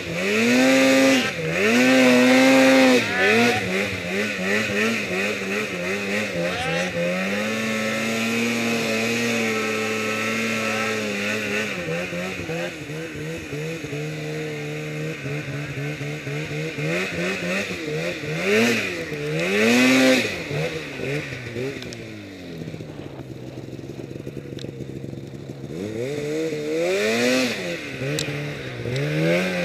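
Polaris Pro RMK snowmobile's two-stroke engine revving up and down while climbing through deep powder. It holds steady for a few seconds in the first half, drops quieter past the middle, then revs in bursts again near the end.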